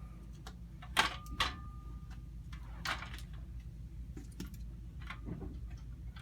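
A few sharp metallic clicks and knocks as a cart's wheels and axle are fitted back on. The loudest pair comes about a second in, the first with a brief metallic ring, and another follows near three seconds.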